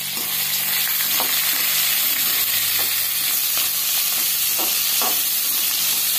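Chopped onions, peanuts and chillies sizzling in hot oil in a metal kadai while being sautéed, with a slotted metal spatula scraping and tapping against the pan now and then.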